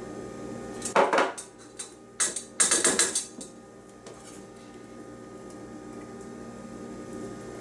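Kitchen clatter: a glass measuring cup and a utensil knocking on a stainless steel mixing bowl and the counter, in a short clatter about a second in and a longer one from about two to three seconds in, then quieter.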